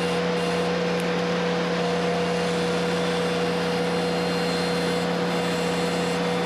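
Ventrac compact tractor's engine running steadily at a constant throttle, with an even hum and no change in speed or load.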